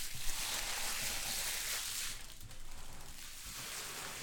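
Foil card-pack wrappers and trading cards rustling and crinkling as they are handled, for about two seconds, then fading to a fainter rustle.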